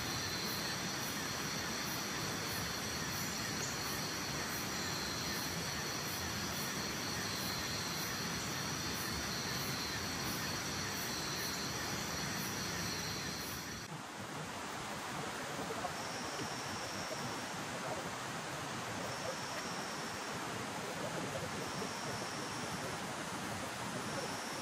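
Forest ambience: a steady rushing hiss with insects trilling at a high pitch. About halfway through the sound changes suddenly, and from then on a short high chirp repeats about every three seconds.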